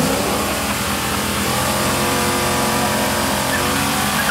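A Corvette's V8 engine revving up and then held at steady raised revs on the drag strip's starting line, just before launch.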